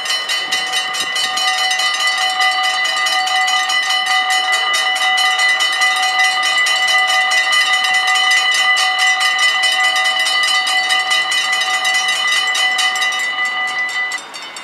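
Mechanical bells of a Dutch level crossing ringing in a fast, even stream of strikes, warning of an approaching train; they stop abruptly near the end, as they do once the barriers are down.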